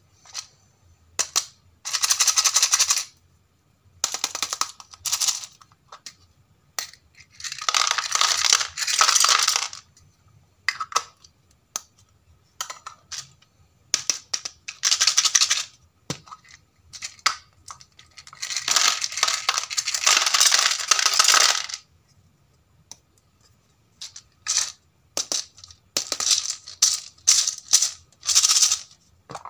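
Small plastic pieces rattling inside hollow plastic toy capsules as they are shaken and opened, then clattering into a plastic tray among plastic animal figures. Several long bursts of rattling, with sharp clicks and clacks of plastic in between.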